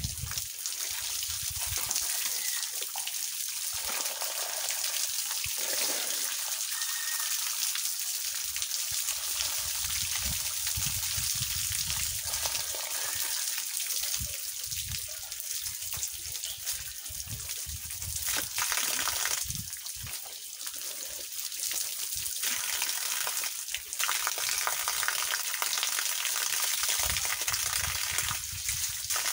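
Water from a garden hose pouring down onto a person bathing, splashing steadily on skin, cloth and the ground, with occasional low thumps.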